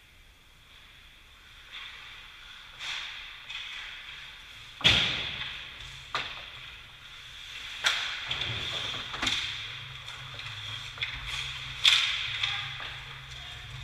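Ice hockey play: skate blades scraping and carving the ice, broken by sharp cracks and thuds of sticks, puck and boards. The loudest cracks come about five and twelve seconds in.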